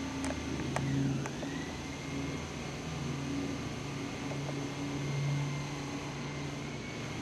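Propeller airplane engines droning overhead, the low hum swelling and fading a little as the plane passes. There are a few sharp clicks in the first second and a half.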